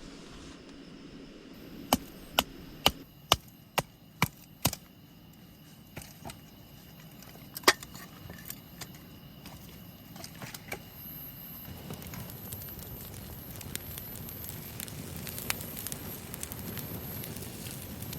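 Seven sharp knocks, about two a second, then a single louder knock and scattered light ticks. From about twelve seconds in comes a low crackling hiss with a faint, steady high tone above it.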